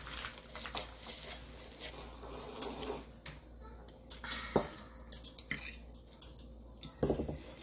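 Chopsticks clicking and scraping against a plate of noodles in scattered light taps, with one sharper click a little after four and a half seconds in and a short flurry of clicks near the end.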